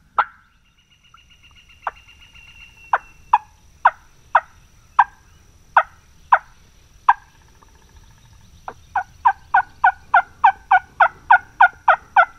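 Turkey clucking and cutting: short, sharp notes, a few scattered at first, then a fast run of about four or five a second near the end.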